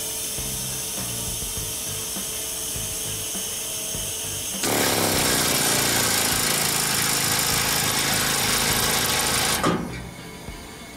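Fuji Paudal Dalton vacuum tablet conveyor running a suction cycle. A steady hiss gives way, about halfway through, to a loud rush of suction air lasting about five seconds. This cuts off abruptly with a clunk as the hopper's discharge flap drops open to empty the load.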